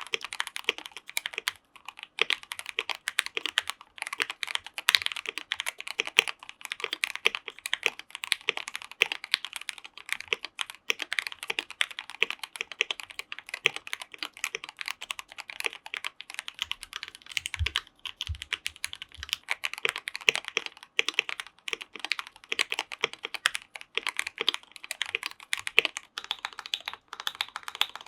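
Fast, continuous typing on a KBD67 Lite R2 mechanical keyboard with Gateron Yellow linear switches and Akko ASA-profile keycaps: a steady run of keystroke clicks and clacks.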